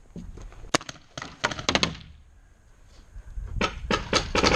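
Paintball fire: sharp pops and thuds in irregular volleys, a few about a second in, a quick cluster around a second and a half, and a faster run of about half a dozen near the end.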